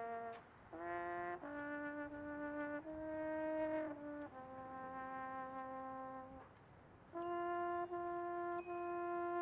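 Marching band playing slow, sustained brass chords, each held for about a second before moving to the next, with a brief break just after the start and a longer pause about two thirds of the way through.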